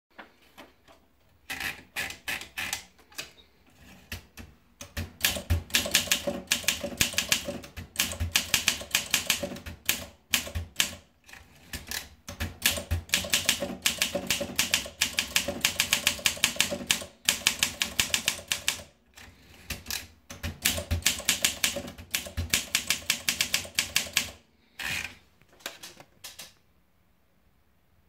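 Olympia SM3 portable manual typewriter being typed on: runs of rapid keystrike clacks lasting several seconds each, separated by short pauses. A few light clicks come first, while the paper is being fed in. Near the end there are a few separate louder clacks, and then the typing stops about a second and a half before the end.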